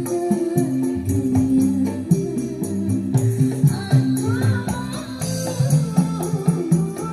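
Music with a steady beat, jingling percussion and a moving bass line, played through a BMA amplifier under test.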